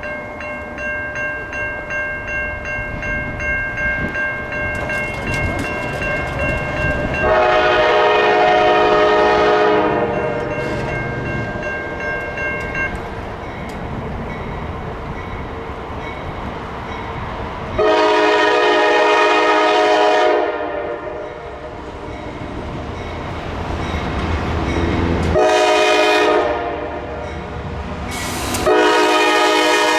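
Diesel freight locomotive's multi-chime air horn on an approaching intermodal stack train, sounding long, long, short, long, the grade crossing signal, over a low locomotive rumble that builds as the train draws near.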